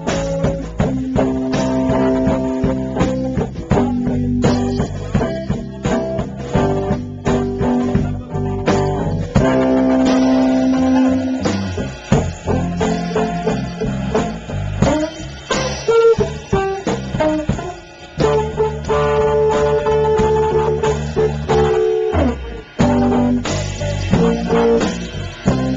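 Guitar music with a bass line, played without singing: held notes over short regular hits.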